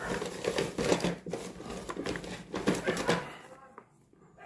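Cardboard box rustling and crinkling as gloved hands press and handle it. The sound stops a little over three seconds in.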